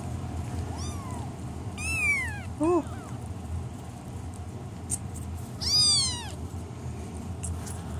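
Month-old kittens meowing: a faint meow about a second in, louder ones around two seconds and near six seconds, and a short lower call between them. Each meow rises and then falls in pitch.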